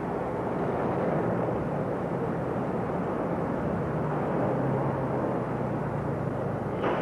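1941 Ford Transit Bus engine running as the bus pulls slowly forward, a steady rumble whose pitch dips a little about four seconds in.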